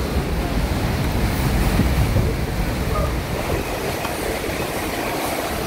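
Category 5 hurricane wind and driving rain, a steady deep roar with no let-up, heard through a window.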